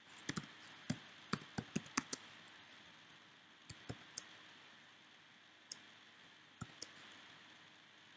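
Computer keyboard typing. There is a quick run of keystrokes in the first couple of seconds, then a few scattered single keystrokes.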